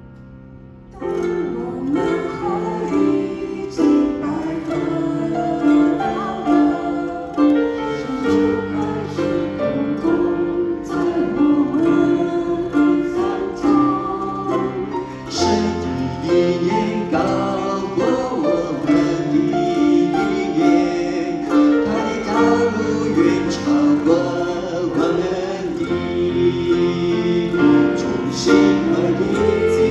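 Live Mandarin worship song: a small group of singers in harmony, accompanied by acoustic guitar and keyboard. The full band comes in about a second in, after a quiet lead-in.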